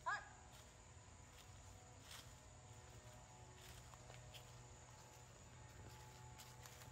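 Near-silent woodland ambience over a low steady hum: a single short bird chirp right at the start, then faint scattered rustles and ticks.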